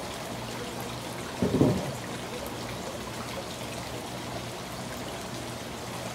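Steady rushing, hissing background noise, with one brief low sound about a second and a half in.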